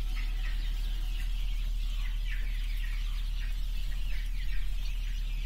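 A crowd of newly hatched quail chicks peeping without pause, many short, high, falling cheeps overlapping, over a steady low hum.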